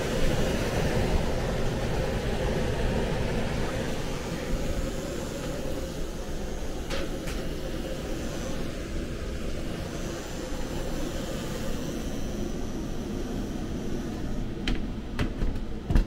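Lennox air handler's indoor blower running steadily, a continuous rushing hum of moving air, with a few light clicks in the middle and near the end.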